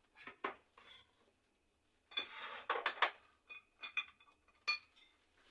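Kitchenware clattering: dishes and utensils clinking and knocking, with a denser scraping clatter about two seconds in and a few short ringing clinks after it.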